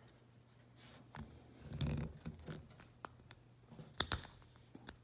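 Knife blade prying at a small plastic HVAC control knob to work its green light insert out: scattered light scrapes and clicks, with a sharp double click about four seconds in.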